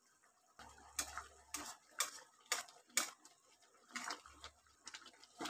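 Mustard gravy boiling in a kadai around fried fish, thick bubbles popping in faint clicks about two a second.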